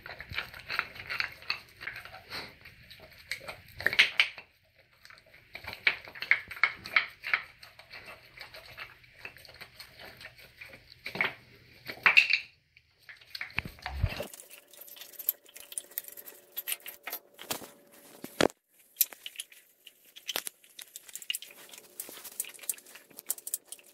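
Alaskan Malamute chewing raw meat and bone: an uneven run of wet tearing and sharp crunches as the teeth work through the meat and crack the bone.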